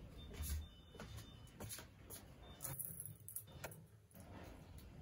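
Clothes hangers clicking and knocking against a drying rail as laundry is lifted off: a few scattered, sharp clicks over a faint low rumble.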